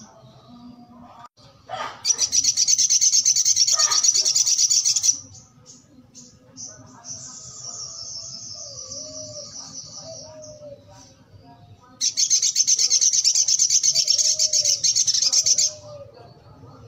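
Male sunbird (sogok ontong) singing: two loud bursts of very fast, high chattering trills, each about three seconds long, with a quieter thin twitter between them.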